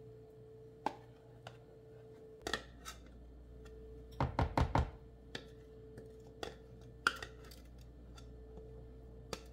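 White spatula scraping and tapping against a jar and a clear plastic bowl as thick mayonnaise is scooped out onto shredded chicken: scattered clicks and knocks, with a quick run of about five heavier thuds a little past the middle. A faint steady hum runs underneath.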